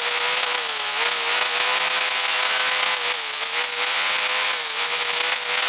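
Angle grinder running steadily, its disc grinding the edges off a steel plate: a steady whine over the rasp of the grinding, the pitch dipping slightly now and then.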